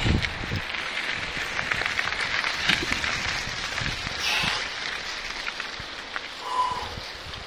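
Mountain bike rolling over a loose gravel and dirt track: a steady crunch of the tyres with many small ticks and rattles from the bike and the jostled camera, and a brief squeak near the end.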